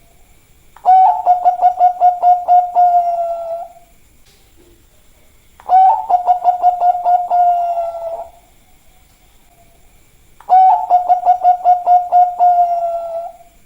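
Zebra dove (perkutut, Bangkok type) cooing: three song phrases about five seconds apart. Each is a quick run of pulsed coos on one steady pitch, lasting about three seconds and ending in a drawn-out final note.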